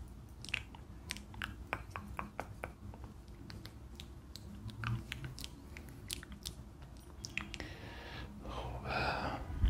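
Close-miked ASMR mouth sounds: irregular wet clicks and smacks, crowded together in the first few seconds and sparser after, with a breathy rush near the end.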